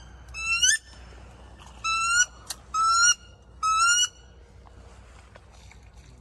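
Wood duck 'oo-eek' calls: four loud squealing whistles, each about half a second long and rising in pitch at the end, repeated about once a second. A short sharp click comes between the second and third.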